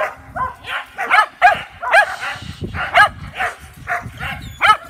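A dog barking over and over, about a dozen short barks at two or three a second.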